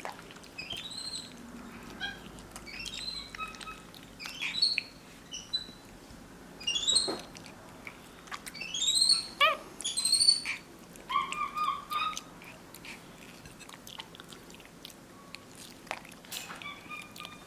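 Capuchin monkey giving a series of short, high chirps that arch up and down in pitch, over faint wet chewing and smacking as it eats ripe mango.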